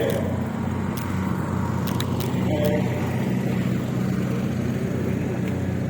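An engine running steadily at idle, a low, even hum with a few faint clicks over it.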